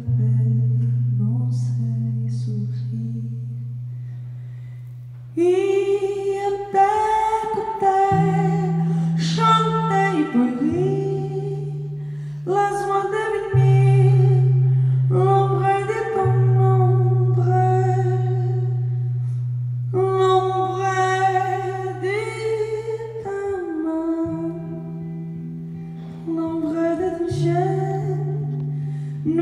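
Live song: a woman singing over an electric guitar playing slow, sustained low chords. The guitar rings alone for the first few seconds and the voice comes in about five seconds in.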